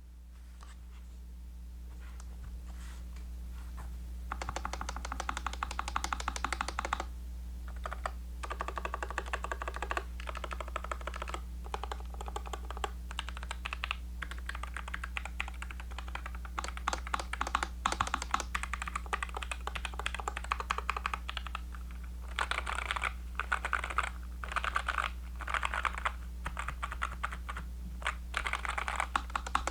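Typing on a Nuphy Air75 V2 low-profile mechanical keyboard fitted with XVX low-profile keycaps: sparse keystrokes at first, then rapid runs of clacking key presses in bursts from about four seconds in. A steady low hum lies under the typing.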